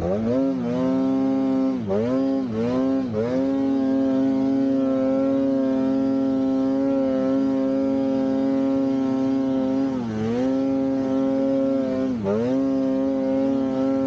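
Polaris Khaos 9R snowmobile's two-stroke twin engine held at steady high revs, with several quick dips in pitch where the throttle is eased and opened again: a few in the first three seconds, then again about ten and twelve seconds in.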